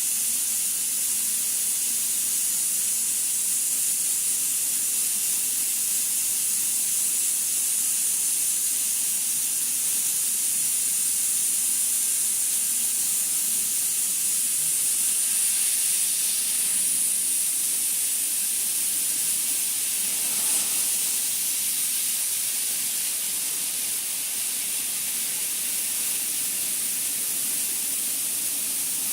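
Steady high-pitched hiss of the CNC cleaning machine working over the surface.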